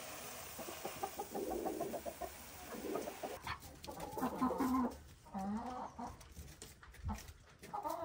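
Chicken feed pouring from a plastic scoop into a feeder in a grainy rush for the first three seconds or so, then barred hens clucking as they eat, with a few short calls after the middle and again near the end.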